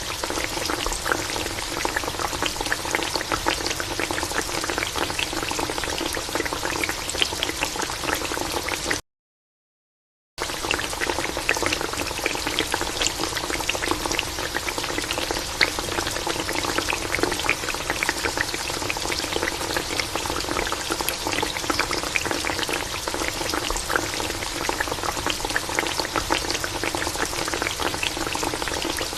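Yam pieces frying in hot oil: a dense, steady sizzle full of small crackles and pops. The sound drops out to dead silence for about a second and a half a third of the way in.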